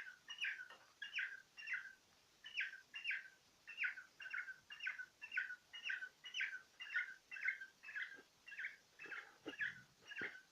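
Cockatiel chirping repeatedly at its reflection in a small mirror: a steady run of short, even chirps, about two a second.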